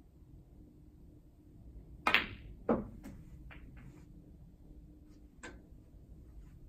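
Snooker shot: a sharp click of the cue tip striking the cue ball about two seconds in, then a second sharp click as the cue ball hits the object ball. Several fainter knocks follow as the balls run into cushions and the pocket.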